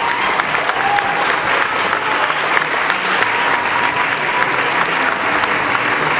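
Audience applauding steadily, a dense, even clapping that holds at one level.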